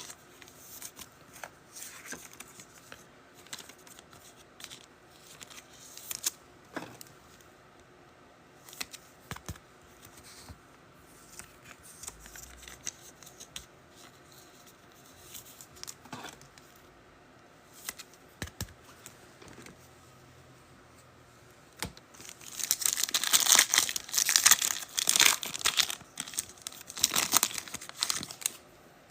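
Faint rustling and clicking of cards being handled, then, near the end, a loud stretch of crinkling and tearing as a foil trading card pack wrapper is ripped open.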